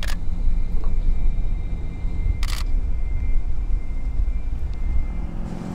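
Camera shutter clicking twice, once at the start and again about two and a half seconds later, over a steady low rumble.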